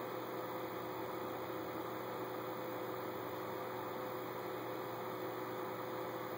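Steady background hiss with a faint, constant two-tone hum; no distinct events.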